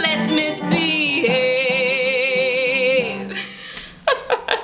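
A woman singing a jazz-age show tune, holding a long note with vibrato that ends about three seconds in. A few short vocal sounds follow near the end.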